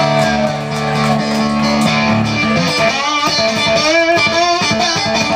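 Guitar being played, a held low note at first, then notes that slide up and down in pitch.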